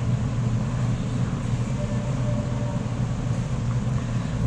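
A steady low hum with a constant rush of noise and no knocks or clicks.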